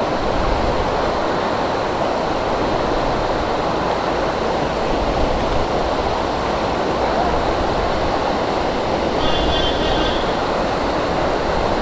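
Stream water rushing steadily over the crossing, a loud even rush with no rhythm.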